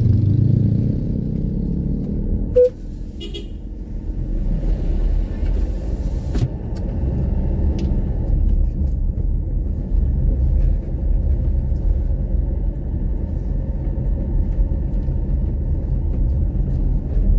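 A motor vehicle driving along a road: steady low engine and road rumble, with a brief loud beep about two and a half seconds in and a few light knocks.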